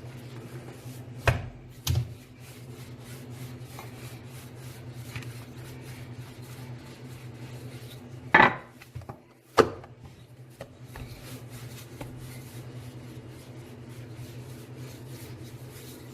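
Rolling pin rolling out pizza dough on a floured marble counter: a steady rubbing, with sharp knocks about a second in, at two seconds, and twice more around the middle. A steady low hum runs underneath.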